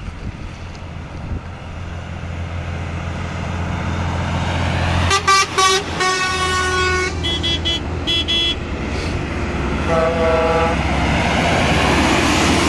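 Heavy trucks' engines building as they pass close, with truck horns tooted: a string of short blasts about five seconds in, a longer note, then a few higher toots. A shorter, lower horn sounds near ten seconds in as the next truck comes past.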